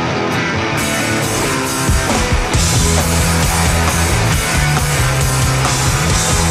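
Rock music soundtrack: a guitar-led passage, then drums and heavy bass come in about two seconds in.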